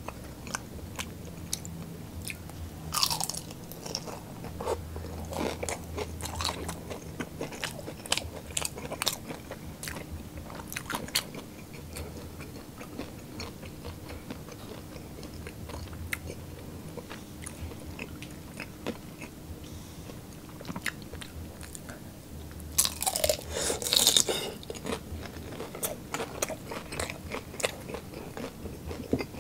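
Close-miked chewing and crunching of fried Filipino street food, with many small wet mouth clicks. A longer, louder noisy burst comes a little before the end.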